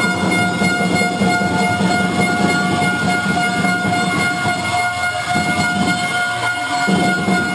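A loud, steady horn tone held unbroken, with no change in pitch, over loud noise from the crowd of spectators.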